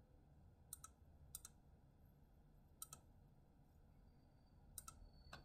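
Computer mouse clicking about five times, each click a quick double of press and release, spread across a few seconds over faint room tone.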